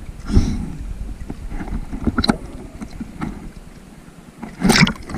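Sea water sloshing and splashing around a camera held at the water's surface, with scattered small knocks and a louder burst near the end.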